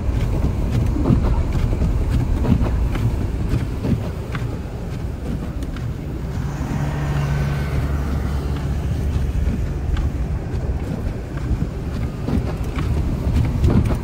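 Car driving through deep snow, heard inside the cabin: a steady low road and engine rumble with wind noise and scattered knocks, and a steadier engine hum from about six to ten seconds in.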